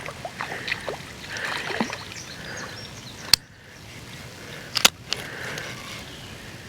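Water splashing and sloshing as a small sunfish is reeled in and landed, with two sharp clicks, one about three seconds in and one near five seconds.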